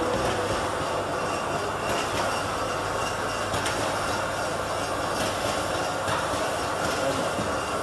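Steady running noise of a stainless steel slat-chain conveyor and heat-shrink labelling line, with a few faint clicks along the way.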